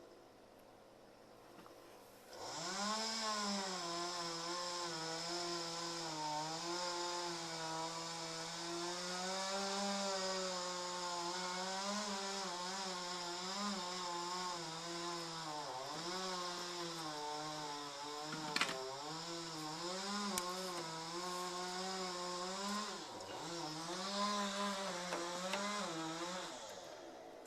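Chainsaw comes up to speed about two seconds in and runs at high revs cutting wood, its pitch wavering and dipping briefly a couple of times as it bogs under load, then dies away just before the end.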